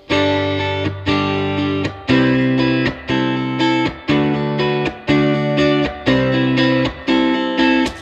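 Background music: chords struck in a steady rhythm about once a second, each fading before the next.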